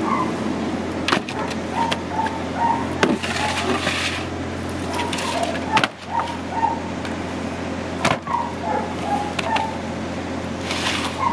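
Occasional sharp knocks and clatter of metal sheet trays as raw pork is shifted on a metal roasting box. Under them runs a steady low hum, with short high chirps recurring throughout and brief stretches of hiss.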